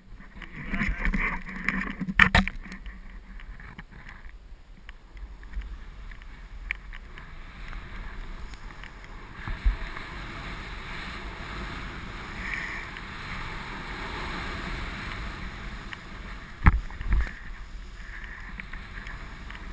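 Snowboard hissing through deep powder snow, with wind on the pole camera's microphone and a few sharp knocks.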